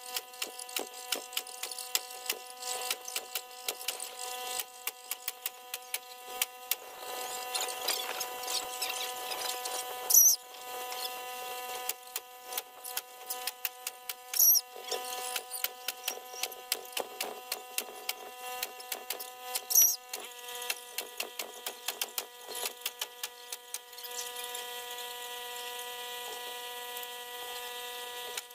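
Electric staple gun firing three sharp shots several seconds apart, stapling wire mesh to a wooden window frame, with many small clicks between them.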